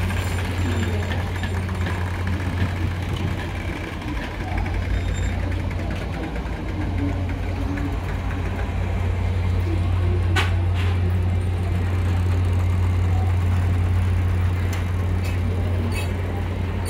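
Passenger train rolling slowly past, its coaches running on the rails over a steady low diesel locomotive drone. Two sharp metallic sounds come close together about ten seconds in.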